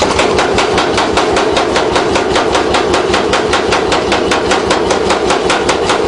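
Power hammer striking red-hot steel in rapid, even blows, about seven a second, flattening the end of a bar.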